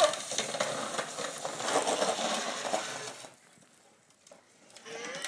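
Hard plastic wheels of a child's ride-on trike rattling and grinding over asphalt, dying away a little over three seconds in. A faint wavering cry comes in near the end.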